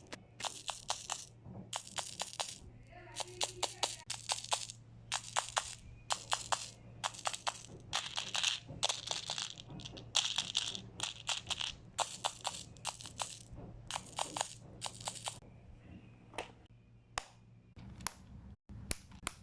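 Bursts of dense crackling and clicking from a new bead box being unboxed and handled, coming about once a second and growing sparser near the end.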